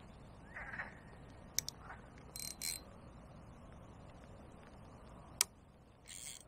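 Fishing tackle handled by hand: a few sharp clicks, the sharpest about a second and a half in and again near the end, with short rustles in between. Faint bird calls sound in the background.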